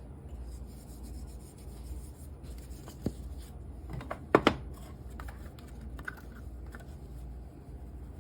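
Small kitchen handling noises while seasoning raw steak: a few light knocks and clicks of containers or utensils, the loudest a quick pair about four and a half seconds in, over a steady low hum.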